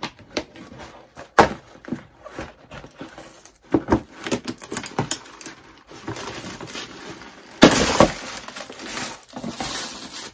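A shoe box and its wrapping being opened by hand: crackling and rustling with sharp clicks and knocks, and a loud burst of rustling about eight seconds in.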